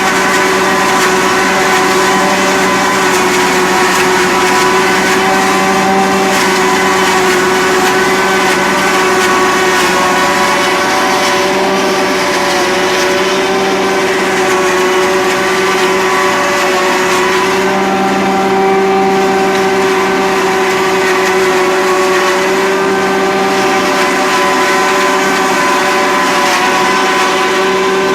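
Engine-driven farm machinery running steadily at an even speed, a constant droning whine with little change in pitch.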